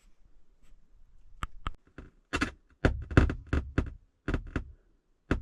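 Random static crackles and pops from the van's house speakers with the radio off: about a dozen sharp, irregular pops, bunched thickest in the middle, with a last one near the end. The owner suspects electricity in the air after a lightning storm.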